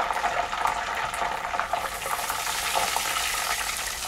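Hot oil in a stainless steel pot bubbling and sizzling as food deep-fries. There is a steady whine under it at first, and about two seconds in the sizzle turns busier and harsher as more food goes into the oil and foams up.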